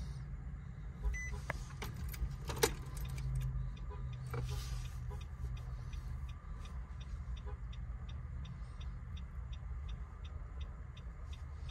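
Nissan Rogue's hazard-light flasher ticking steadily at about three clicks a second over a low steady hum. A short beep sounds about a second in, and a few sharp knocks from handling come in the first half, the loudest about two and a half seconds in.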